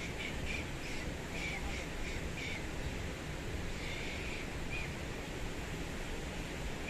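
A mountain stream rushing steadily, with a run of short, high chirping calls over it in the first few seconds.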